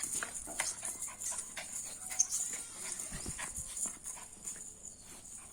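A dog's faint whimpering among scattered short clicks and scuffles, over a steady hiss.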